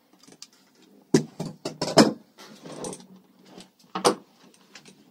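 Pliers and an adjustable wrench clinking and knocking as they come off a brass hose fitting and are set down on a wooden bench, with the rubber pressure-washer hose being handled. There are a few sharp knocks, the loudest about two seconds in.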